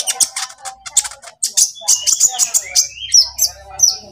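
Kolibri ninja sunbird twittering: a fast, dense run of short, sharp high chirps broken by a few falling whistled notes. This is the chattering song used as a 'pancingan' to spur a silent konin into singing.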